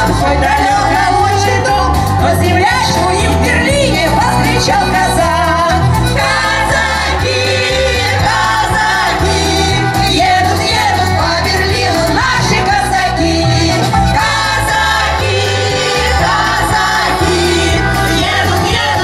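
A mixed group of women's and men's voices singing together through microphones and a PA, over instrumental accompaniment with a steady, rhythmic bass line.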